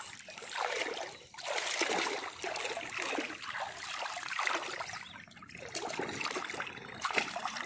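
Water splashing and dripping in irregular surges as a gill net is lifted out of shallow pond water with a fish thrashing in the mesh.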